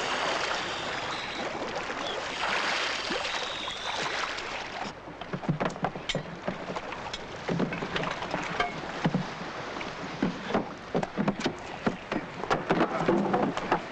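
Water splashing and churning, then from about five seconds in a string of irregular, sharp knocks and clunks: gold bars landing on a wooden boat deck.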